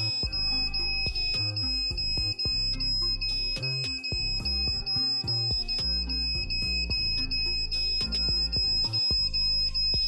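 Piezo buzzer of a homemade 555-timer smoke alarm sounding a steady high-pitched tone: the MQ5 gas sensor has been set off by smoke from a match. Background music with bass and plucked guitar plays under it.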